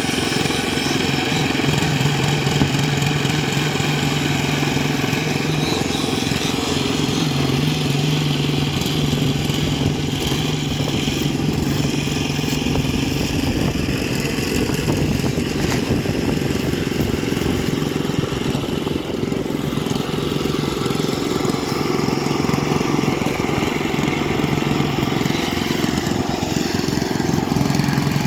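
Small engine of a concrete needle vibrator running steadily at a constant speed, with a slight dip in its note early on before it steadies again.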